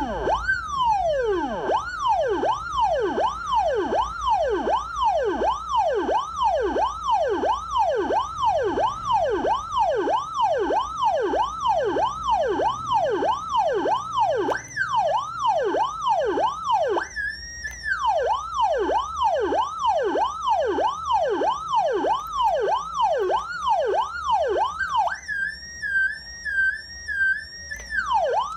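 Electronic 113 police-style siren for a motorbike, sounding a fast repeating yelp whose pitch sweeps about twice a second. It switches briefly to a high warbling tone partway through, then to a fast high warble near the end before the sweeps return.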